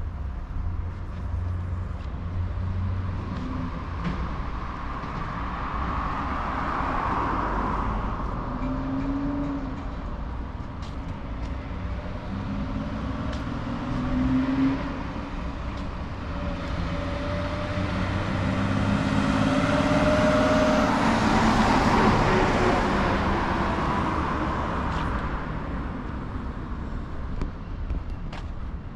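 Street traffic: motor vehicles driving past over a steady low rumble. Two louder pass-bys swell and fade, one about a quarter of the way in and a longer, louder one about two-thirds through.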